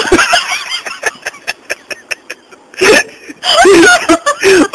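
A person laughing helplessly and nearly out of breath: a quick run of short gasping clicks, several a second, then loud high-pitched bursts of laughter near the end.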